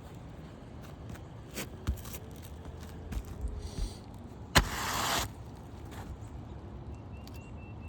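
A few light knocks, then a sharp crack about halfway through followed by half a second of scraping, from hand work on roof shingles, over a steady low background hum.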